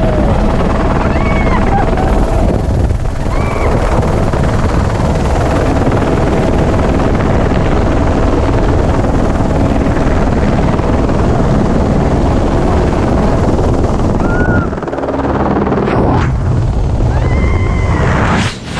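Loud, steady helicopter rotor and turbine noise heard from inside the cabin, with wind rushing in at the open door.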